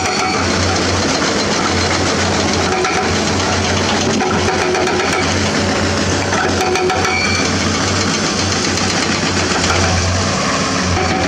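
Hitachi Zaxis 200 excavator's diesel engine running steadily, with a constant low hum.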